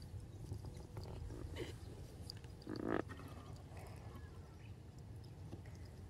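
Quiet outdoor background: a low steady rumble with a few faint clicks, and one short louder sound about three seconds in.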